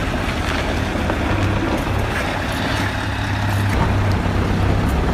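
Heavy diesel vehicle engine running with a steady low drone.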